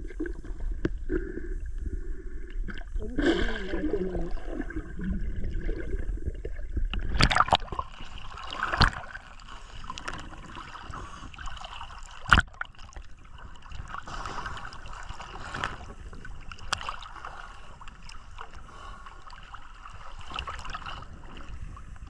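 Water sloshing and gurgling around a boat, with a few sharp knocks, the loudest about twelve seconds in.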